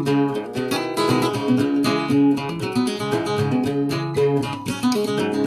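Guitar being played live, with chords fretted and strummed alongside single plucked notes in a continuous run of changing notes.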